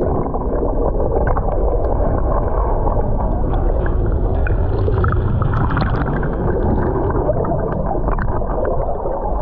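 Steady, muffled gurgling water noise with scattered faint clicks.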